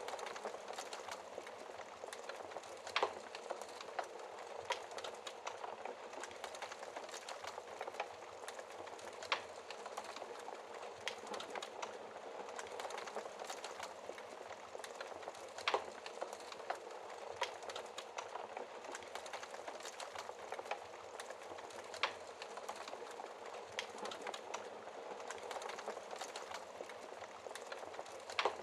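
Wood fire crackling steadily in a fireplace, with frequent small snaps and a few sharper, louder pops every several seconds.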